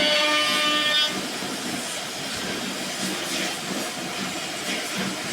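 A machine motor's high whine cuts off about a second in, leaving a steady mechanical rumble and hiss.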